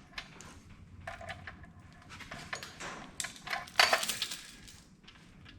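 Metal tools and hardware clinking and clattering as parts are handled, with the loudest cluster of clanks about four seconds in.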